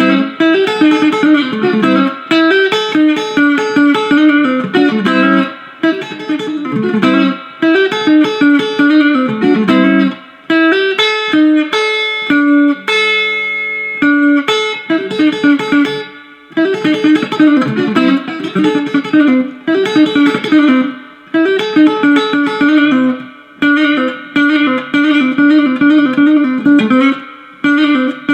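Electric guitar playing a fast country chicken-pickin' lick: rapid picked runs with banjo-roll patterns, played over and over in short phrases with brief gaps. About halfway through, a single chord rings out for a couple of seconds before the runs resume.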